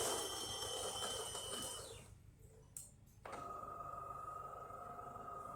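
DeLonghi Magnifica XS bean-to-cup espresso machine starting a shot: its grinder runs, then stops about two seconds in. After a single click, the machine starts up again about three seconds in with a steady whining hum.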